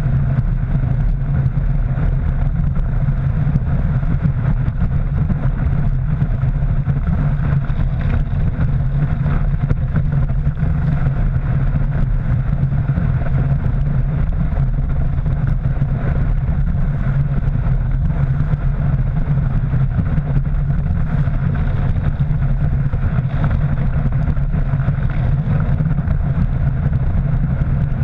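Wakeboard skimming across the water at speed, a steady, muffled low rush of spray and wind against the board-mounted action camera in its housing, with a steady low drone underneath.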